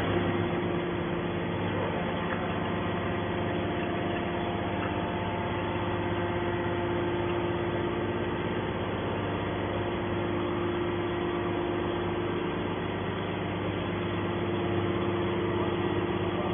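Hydraulic can baler's power unit (motor and pump) running with a steady hum made of several constant tones.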